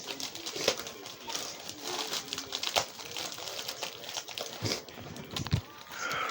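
A plastic DVD case being handled: a run of irregular small clicks and taps, with a couple of low thumps near the end.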